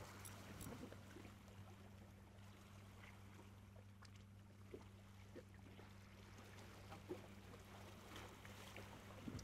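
Near silence: a faint steady low hum with a few soft, scattered ticks.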